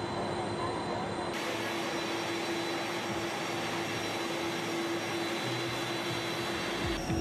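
Jet engines of Air Force One, a Boeing VC-25A (a modified 747-200), running at taxi power: a steady rushing noise with a held droning tone.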